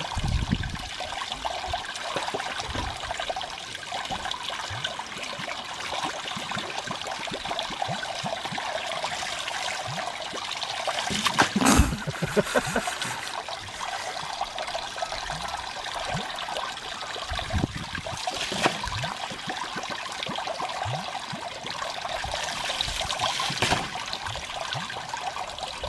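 Water running steadily from a hose with a constant splashing hiss, broken by scattered low thumps and one sharp knock about halfway through.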